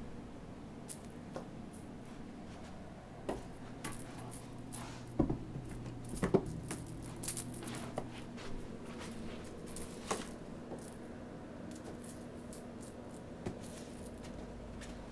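Kittens playing: scattered light clicks, taps and rustles, busiest in the middle, over a faint steady low hum.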